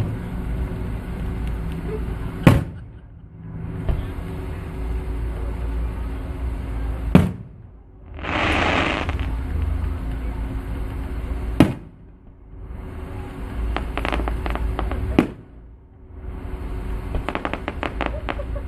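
Distant fireworks: four sharp bangs a few seconds apart, with bursts of crackling near the end and a hissing rush about eight seconds in, over a steady low rumble.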